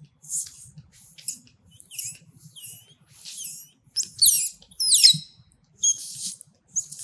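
A run of about ten short, high-pitched squeaks and chirps, some sliding in pitch, the loudest two about four and five seconds in.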